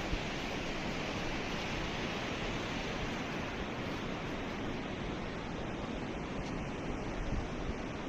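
Steady rushing of a fast-flowing mountain stream.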